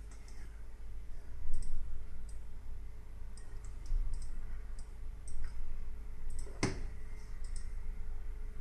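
Computer mouse buttons clicking now and then, about a dozen scattered clicks with one louder click a little before the end, over a steady low hum.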